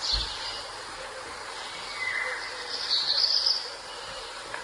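Bird chirps over a steady hiss, a few short calls at the start and again around two to three seconds in.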